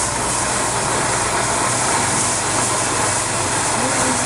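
Ground fountain firework spraying sparks with a steady, even hiss.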